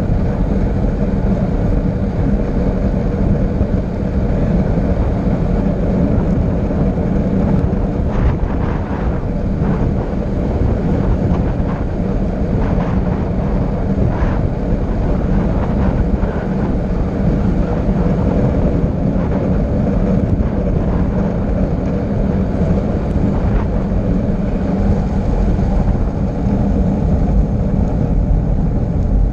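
Heavy, steady wind rush buffeting a camera microphone at downhill speed, with a few faint clicks in the middle.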